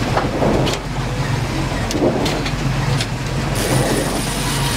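Fishing boat's engine running with a steady low hum, under a hiss of wind and water and a few sharp clicks.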